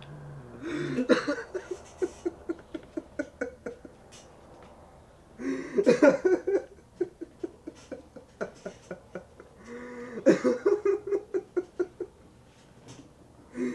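Men laughing in three bouts about five seconds apart, each a quick run of 'ha-ha' pulses that trails off over a couple of seconds.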